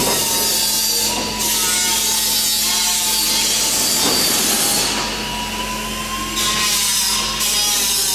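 Workshop tool noise: a loud rasping hiss that runs in several long stretches with brief breaks, over a wavering whine.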